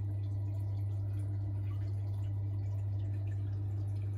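Steady low electrical hum at one unchanging pitch, with faint dripping and trickling water under it.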